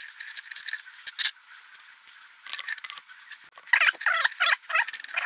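Allen key unscrewing a screw from a Sovol SV06 3D printer's base: small metallic clicks and scraping, then a run of short squeaks in the last second and a half.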